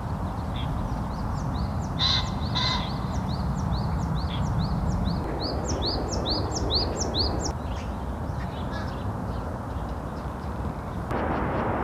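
Birdsong: a long run of short rising chirps, repeated several times a second, with two harsh cawing calls about two seconds in, over a steady low background rumble. The background changes abruptly near the end.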